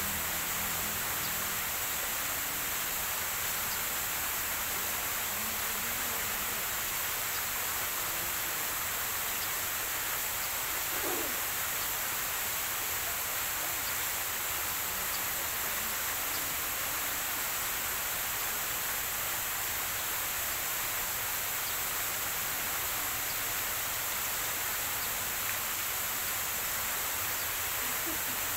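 Steady outdoor ambience: an even hiss, strongest in the high range, with faint low sounds now and then and one brief rising call about eleven seconds in.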